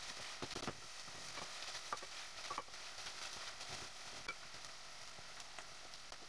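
Chopped onions, bell pepper and dried tomatoes frying in oil in a stainless steel pot, a quiet steady sizzle, with scattered light clicks and scrapes of a wooden spoon stirring against the pot.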